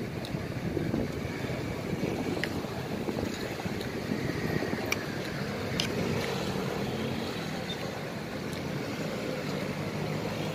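Steady rumble of traffic, with a few light clinks of a metal spoon and fork against a plastic plate as a salad is mixed.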